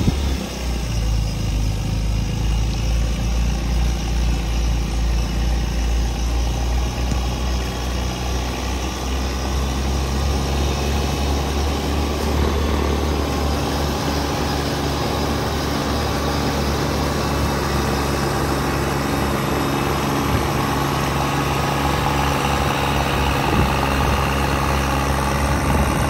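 Kubota B2301 compact tractor's three-cylinder diesel engine running steadily at working speed, driving a rear snowblower that throws snow from its chute.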